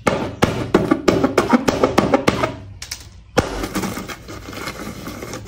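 Hand knocking rapidly on a sheet of paper, then a harder hit about three and a half seconds in as it punches through, followed by paper tearing and crumpling.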